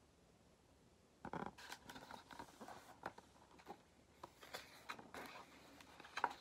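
Faint rustling and soft taps of paper as the pages of a hardcover picture book are handled and turned, starting about a second in.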